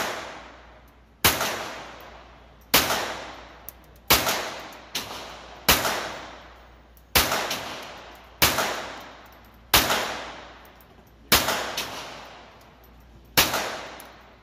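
Canik TP9 Elite SC 9mm pistol firing about ten slow, evenly spaced shots, one every second and a half or so. Each shot rings off in the reverberant concrete lane of an indoor range.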